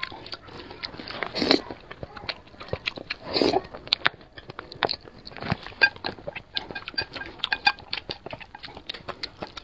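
Close-miked eating of saucy noodles: two loud slurps, about a second and a half and three and a half seconds in, with wet chewing, lip smacks and short clicks in between.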